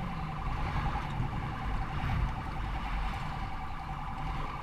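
Police car siren in a fast, steady warble, heard from inside the patrol car's cabin over steady engine and road rumble.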